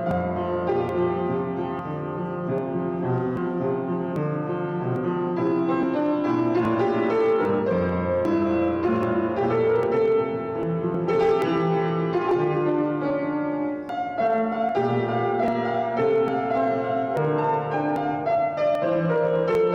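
Piano playing continuous, sustained chords and melody as the postlude after the closing benediction of a church service.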